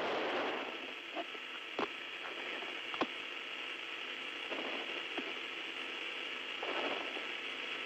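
Steady hiss of an open air-to-ground radio channel from the spacecraft, with a few sharp clicks spread through it.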